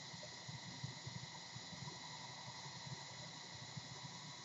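Steady faint hiss with a low hum under it and no distinct sounds: room tone.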